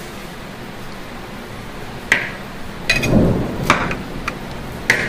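Knife blade knocking on a wooden cutting board while slits are cut into a raw chicken drumstick to let the marinade in: about five sharp taps in the second half, with a few low thuds among them.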